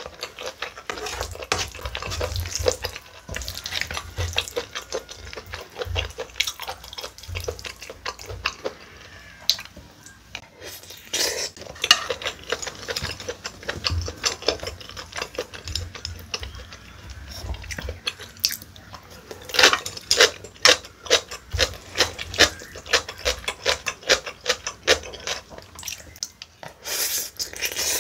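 Close-miked eating sounds: a person chewing a mouthful of spicy webfoot octopus rice, with a wooden spoon and chopsticks scraping and clinking in a plastic takeout bowl. In the second half the clicks come thick and fast, about three a second.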